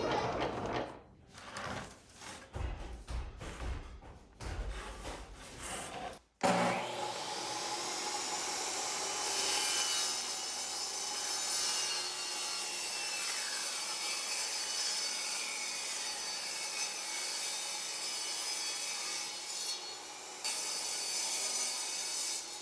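A saw cutting through a wooden board: uneven strokes for the first few seconds, then after an abrupt break a steady cutting sound with a shifting whine.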